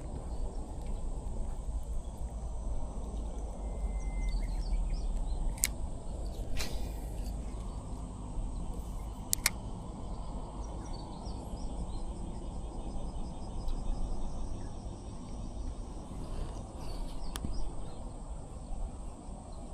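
Outdoor ambience: a steady low rumble with a thin, steady high hiss, a few sharp clicks scattered through it and a brief faint bird chirp.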